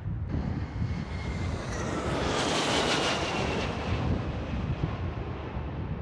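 Twin-engine jet airliner with gear down passing low overhead on landing approach: a rush of engine noise that swells to a peak about halfway through and then fades, with a whine falling in pitch as it goes by. Gusty wind buffets the microphone throughout.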